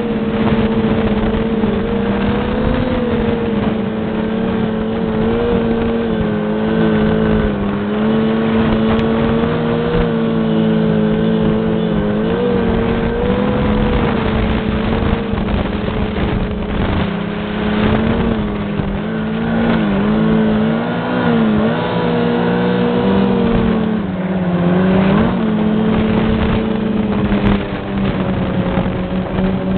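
Yamaha snowmobile engine running steadily at trail-riding speed, its even drone wavering slightly in pitch a few times as the throttle is eased and opened again, around twelve, twenty and twenty-five seconds in.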